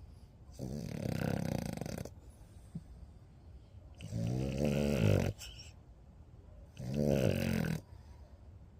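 French bulldog snoring in its sleep: three loud snores, each about a second long and about three seconds apart.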